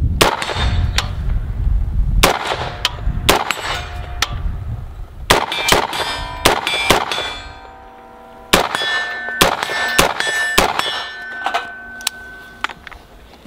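A string of AR-15 rifle shots, each answered by the clang and ringing ding of a hit steel target plate. The shots come in quick groups with a short pause about eight seconds in.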